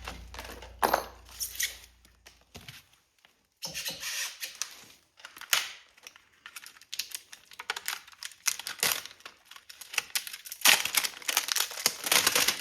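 Irregular clicks, taps and rustling of bike parts and packaging being handled during e-bike assembly.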